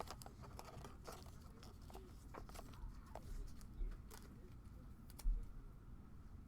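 Trading cards and their wrappers being handled: faint scattered clicks, taps and rustles, with a few dull thumps, the loudest a little after five seconds in.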